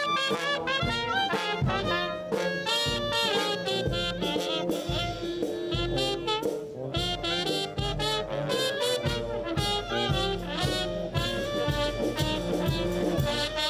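Jazz band music with horns playing over a steady beat.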